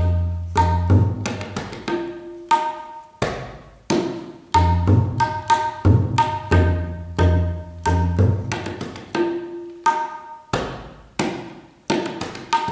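Tabla played solo: ringing, tuned strokes on the dayan (treble drum) mixed with deep booming strokes on the bayan (bass drum), in a measured rhythm of separate strikes with short gaps between phrases.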